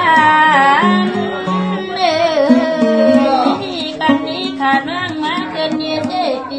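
Tai Khun kam soen folk music from Kengtung: an ornamented melody with bending, wavering pitch over a plucked-string accompaniment, running continuously between sung verses.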